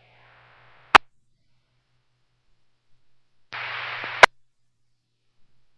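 Two-way radio receiver on an amateur radio net keying up with no voice: a sharp click about a second in, then, past the middle, under a second of hiss and steady hum from an unmodulated carrier, cut off by a squelch-tail click. Otherwise silence, the squelch closed between transmissions.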